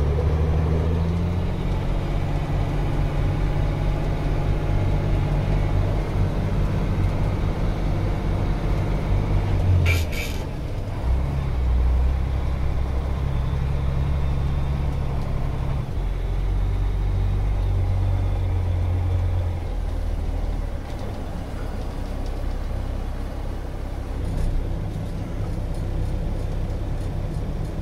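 Semi truck's diesel engine running, heard from inside the cab, its pitch shifting a few times as the truck moves and slows. A short hiss about ten seconds in.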